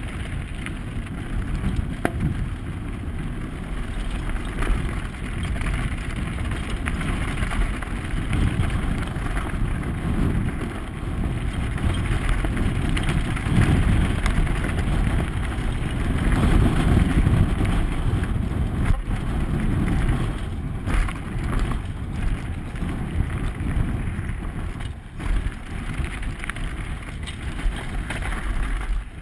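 Wind rushing over a helmet camera's microphone, mixed with a downhill mountain bike's tyres rolling fast over loose gravel and rock. The noise swells toward the middle and eases off later.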